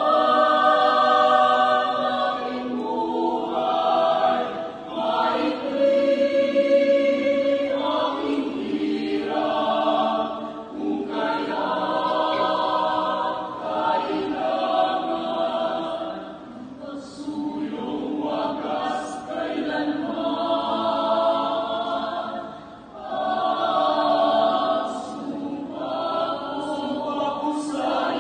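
Mixed choir of men's and women's voices singing in sustained chords, phrase after phrase, with short breaks between phrases.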